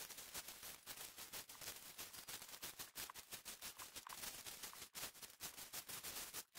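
Footsteps crunching through dry leaf litter, with brush rustling against the walker: a dense run of irregular crackles, several a second.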